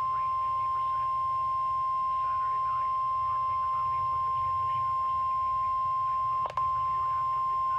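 NOAA Weather Radio warning alarm tone: one steady high tone at about 1050 Hz, with a brief dropout about six and a half seconds in. It is the alert that signals a warning is about to be broadcast.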